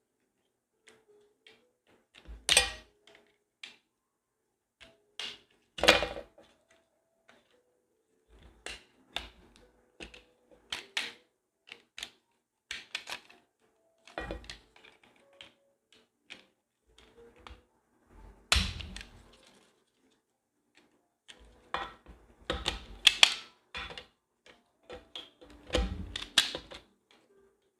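Scattered clicks, knocks and clatter of parts and tools being handled while a car's steering column assembly is taken apart. There are louder knocks about two and a half, six and eighteen seconds in, and a busier run of knocks near the end.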